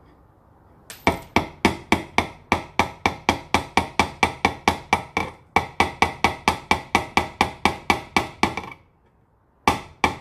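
Claw hammer tapping a nail through the soft wood of an old wooden box: a quick, even run of strikes, about four a second, with a short break midway, then two more strikes near the end.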